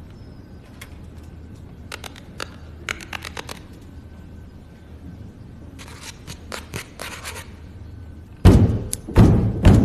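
Scattered light clicks and scrapes over a low hum, then a series of loud thuds starting near the end.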